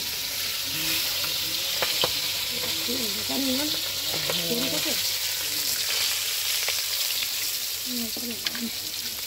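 Barramundi steaks frying in hot oil in a steel wok, a steady high sizzle, with a few sharp clicks along the way.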